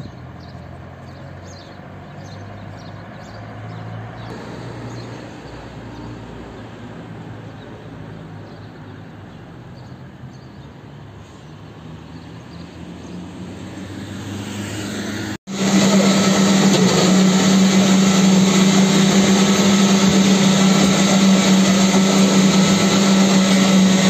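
Street ambience with a low steady engine-like hum. About fifteen seconds in it cuts off abruptly. A much louder, steady motor drone follows: a strong low hum under a dense hiss.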